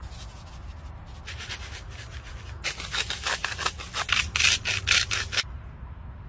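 Lemon-pepper seasoning shaken from a paper sachet in quick strokes, the dry granules rattling and hissing about four to five shakes a second, getting louder partway through and stopping suddenly about five seconds in.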